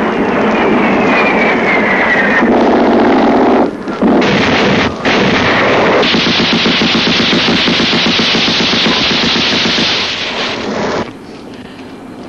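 Film sound effects of a jet fighter's strafing run: a falling jet whine over the first couple of seconds, then sustained rapid machine-gun fire mixed with explosions. It cuts off abruptly about eleven seconds in.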